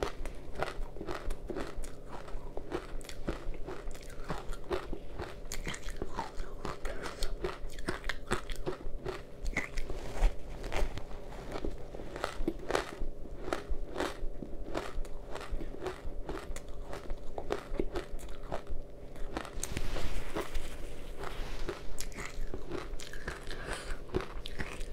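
Powdery ice coated in matcha powder being bitten and chewed close to the microphone: a dense run of short, crisp crunches, with a louder, longer crunch about twenty seconds in.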